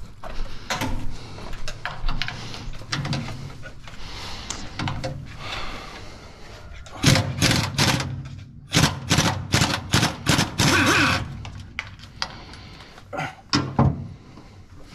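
Metal knocking and clattering of tools and parts being worked on a combine harvester, in irregular runs with two dense bursts of rapid clatter in the second half.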